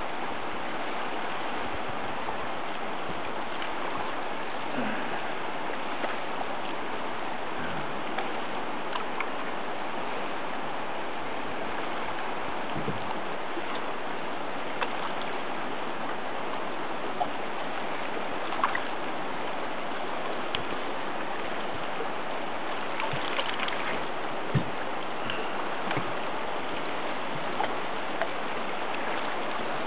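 Steady rush of fast-flowing river water around a boat, with scattered small clicks and knocks.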